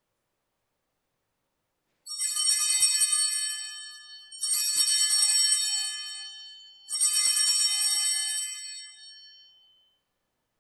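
Altar bells rung three times, about two and a half seconds apart, each a high jingling ring that fades away: the bell signal at the elevation of the host during the consecration.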